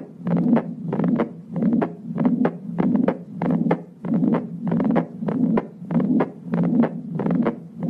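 Heart sounds of atrioventricular valve regurgitation: a quick, regular heartbeat in which each beat is a soft first sound followed by a continuous rushing pansystolic murmur, the sign of a mitral or tricuspid valve that does not close.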